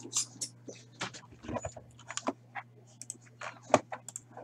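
Typing on a computer keyboard: irregular sharp clicks and taps, over a faint steady low hum.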